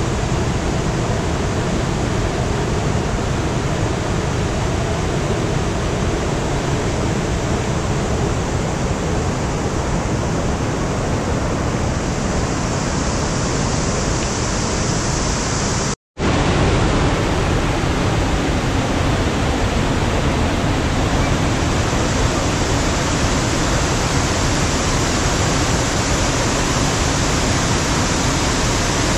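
Steady, loud rush of a waterfall, the sound dropping out for an instant about sixteen seconds in.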